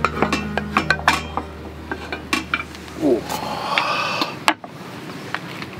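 A metal hot sandwich maker clinking and clanking as it is handled on a camp stove grate: a run of short sharp clicks and knocks, then squid rings frying in butter inside it with a brief sizzle, and one sharp click near the end.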